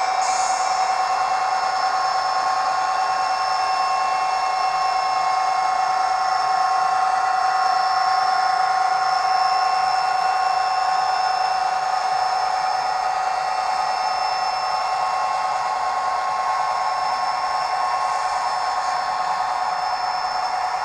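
Sound decoder in an HO-scale SD45 model locomotive playing diesel engine sound through its small speaker. It runs steadily, with a constant high whine over the engine noise.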